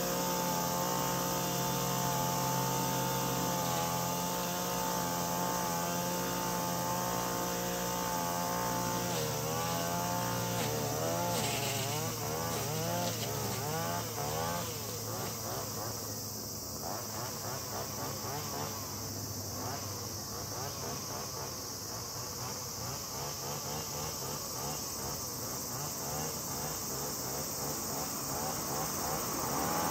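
Shindaiwa RM3032 30.5 cc two-stroke brush cutter with a nylon-cord head running at high speed, steady at first. From about nine seconds in, the engine note wavers up and down as the line cuts through grass.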